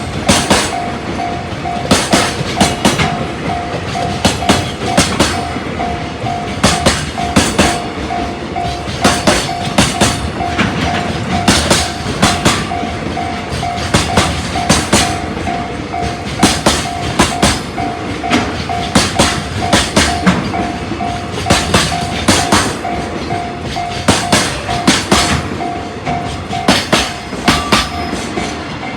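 Freight train wagons rolling past, their wheels clicking over a rail joint in clusters of about four strokes roughly every two seconds. Under it a level crossing alarm rings steadily in even, repeated pulses.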